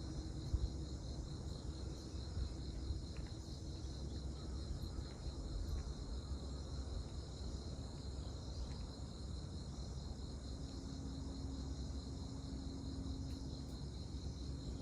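Insects chirring in a steady high trill, over a low distant rumble from the harbour below. A faint hum comes in about two-thirds of the way through.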